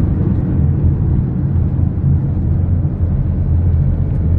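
Car driving, heard from inside the cabin: a loud, steady low rumble of engine and road noise.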